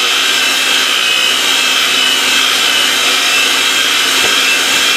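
Electric mixer with a wire whisk attachment running steadily at high speed, whipping royal icing in a stainless steel bowl: a high motor whine over a steady whirr.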